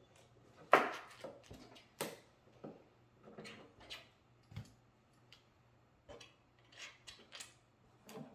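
Plastic LEGO pieces being handled and pressed together: irregular small clicks, clacks and rustles, with one sharper clack about a second in.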